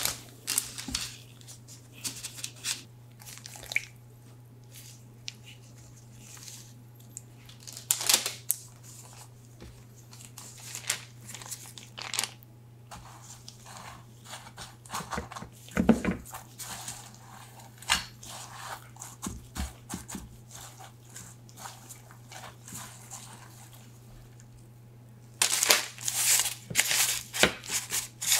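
Scattered soft taps and parchment-paper crinkles as wet pretzel dough is lifted from a bowl and set down on a lined baking tray. Near the end comes a dense patter of chopped almonds poured over the dough. A steady low hum runs underneath.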